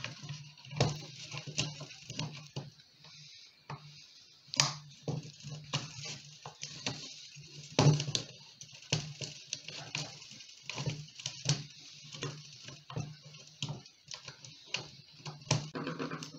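Irregular clicks and knocks of a plastic fuel rail and injectors being handled and pressed into place on an intake manifold, with the sharpest knocks about four and a half and eight seconds in.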